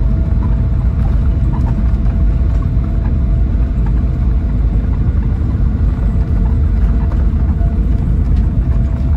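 Scania K440EB6 coach heard from inside the saloon: a steady, loud low rumble from the engine and running gear, with a constant thin whine above it and faint scattered rattles.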